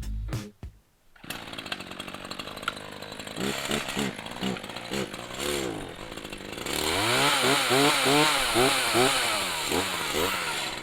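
Echo CS-4010 18-inch two-stroke chainsaw running, its engine pitch rising and falling over and over. It grows louder about two-thirds of the way in.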